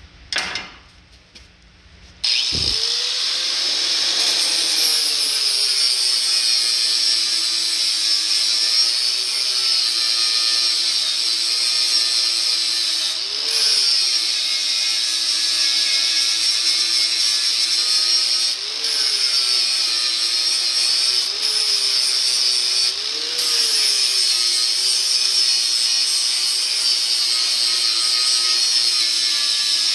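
A handheld angle grinder spins up about two seconds in and then grinds steadily at the welds on a 1948 Chevy truck's steel frame, throwing sparks. The whine rises briefly in pitch about four times along the way.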